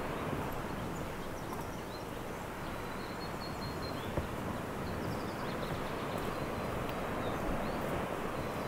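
Steady outdoor rushing ambience with faint, high, short chirps of small birds scattered through it; the rush grows a little louder near the end.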